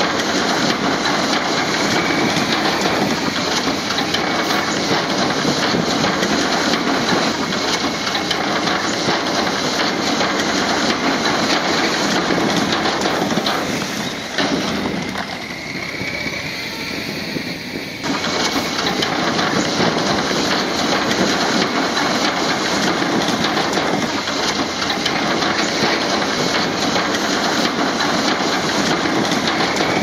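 Diesel engine of heavy earthmoving machinery running steadily under load, with a dense clattering noise and a thin high whine over it. It turns quieter for a few seconds about halfway through, then comes back abruptly.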